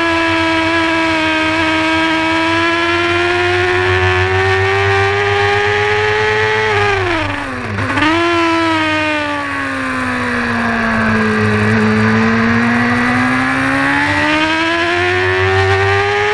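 Honda supersport racing motorcycle engine heard onboard at high revs under load. About seven seconds in the revs fall steeply through the gears, then climb again. They sag slowly through a corner and rise once more toward the end.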